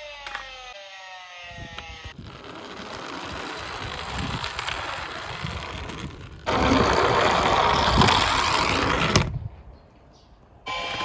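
Die-cast toy cars rattling as their small wheels roll down a slope, louder for the last few seconds before stopping suddenly. A falling siren tone fades out at the start.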